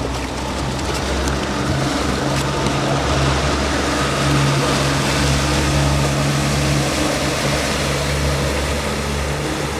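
Triple outboard motors on a Protector rigid-inflatable boat running under way with a steady low drone as the boat moves off, over the hiss of water churning in its wake.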